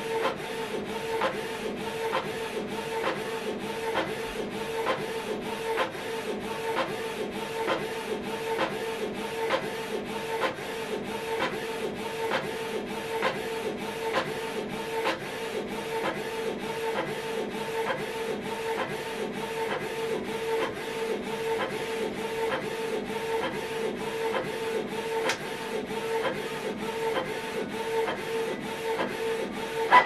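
Canon PIXMA TS3151 inkjet printer printing a colour page: a steady mechanical hum with a regular ticking about twice a second as the paper is fed out.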